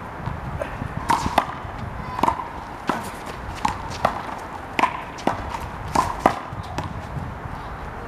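A rubber handball being struck and bouncing off hands, wall and concrete: about a dozen sharp smacks at uneven intervals, several in quick pairs, each with a short hollow ring.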